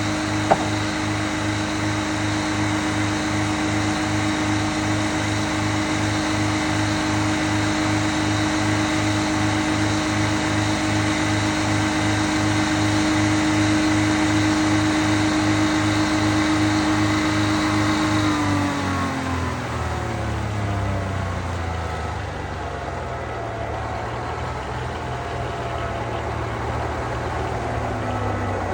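Engine driving a Frick sawmill running at a steady speed with a pulsing beat, then throttled back about two-thirds of the way in, its pitch falling over a few seconds to a lower steady idle. A single sharp click just after the start.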